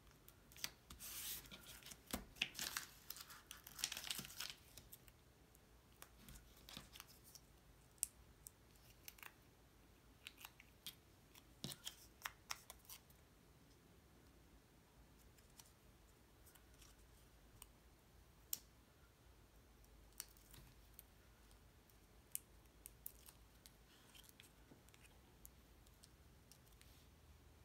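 Faint hand work with paper craft pieces: rasping and tearing sounds in the first few seconds as double-sided foam tape is handled and its paper backing peeled off, then scattered soft clicks and rustles as the card-stock pieces are pressed together.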